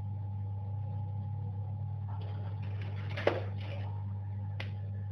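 Multimeter test probes and small parts being handled on a workbench while testing a zener diode: a brief spell of rustling with a sharp click a little over three seconds in and another short click near the end, over a steady low electrical hum.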